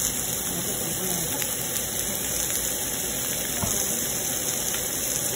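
Pulled pork, onions and green peppers sizzling in a pan: a steady hiss.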